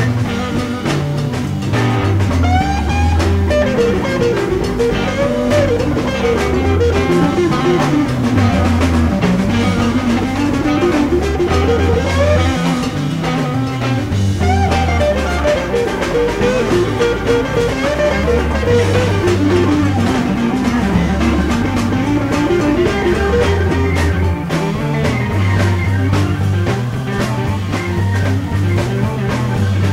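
Live psychedelic rock band playing an instrumental stretch: electric lead guitar plays winding lines with bending pitches over bass guitar and drum kit, with no singing. Soundboard recording.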